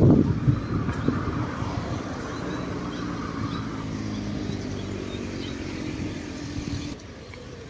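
A motor vehicle engine running at a steady speed, with gusty noise in the first second. The engine sound drops away about seven seconds in.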